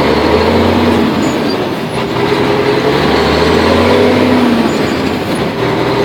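Loaded diesel truck's engine pulling away in first gear, heard from inside the cab, its note rising and falling twice as the revs climb and ease.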